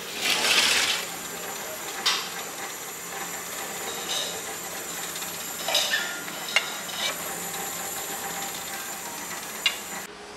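Metal serving tongs clicking and tapping against a plate and steel tray as small desserts are picked up and set down, a few sharp clicks spread out, over a steady hiss of room noise. A short rush of noise opens the sound.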